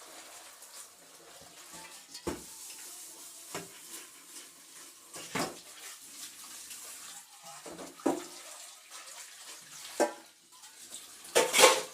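Hand-washing cooking pots at a kitchen sink: water running softly from the tap, with half a dozen scattered clanks of pots and dishes knocking together. The loudest clank comes near the end.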